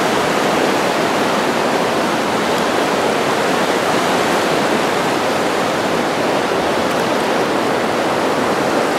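Fast, shallow river rushing over a rocky riffle: a loud, steady rush of water.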